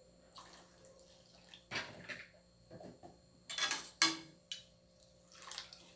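Milk being poured from a plastic measuring jug into a frying pan of grated carrot, splashing in several separate pours, the loudest about four seconds in.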